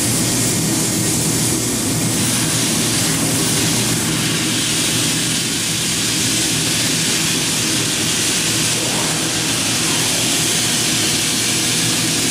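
Anderson Exxact Plus CNC router running as it machines a fiberglass part: a loud, steady machine roar with a strong hiss from the spindle and dust extraction. A steady higher tone joins about ten seconds in.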